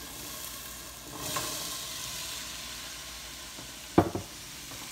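Black currants pouring out of a glass jug into a stainless steel pot, a steady rattling patter of many small berries landing on the metal. A single sharp knock about four seconds in.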